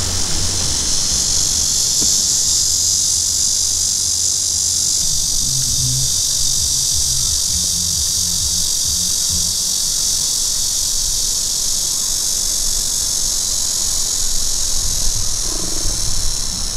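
Cicadas singing in a loud, steady, high-pitched chorus.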